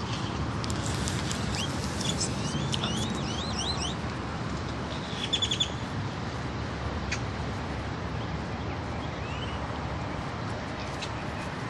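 Small birds chirping: a run of short rising chirps in the first few seconds, a quick trill of repeated notes a few seconds in, and a faint chirp near the end, over a steady low background hum.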